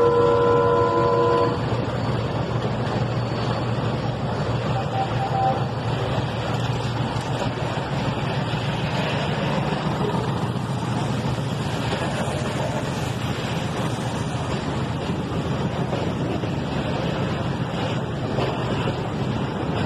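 A DF7G-C diesel locomotive's horn sounding and cutting off about a second and a half in, then a freight train's boxcars and tank cars rolling past close by, a steady rumble and clatter of wheels on the rails.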